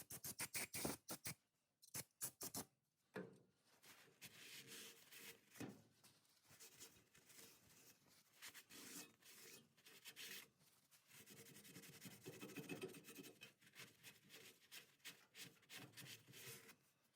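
Faint hand sanding on a metal part: irregular, rhythmic rubbing and scraping strokes, preceded by a quick run of sharp clicks in the first second.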